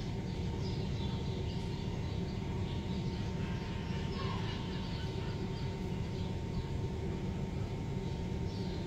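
Street ambience: a steady low rumble of traffic with faint, short bird chirps scattered through it.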